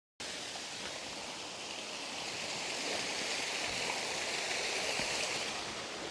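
Forest waterfall: a steady rush of falling water that cuts in suddenly just after the start and swells slightly midway.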